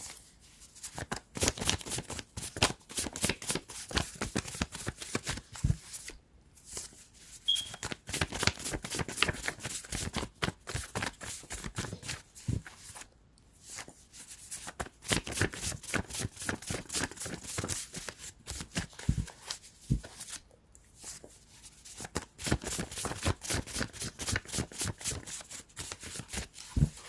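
A deck of tarot cards being shuffled by hand: long runs of rapid card flicks and slaps, broken by three short pauses.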